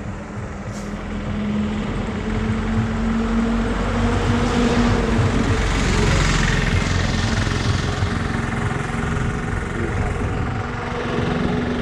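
Motorbike engine running steadily while riding, with wind rushing over the helmet-mounted microphone; the rush swells in the middle and eases toward the end.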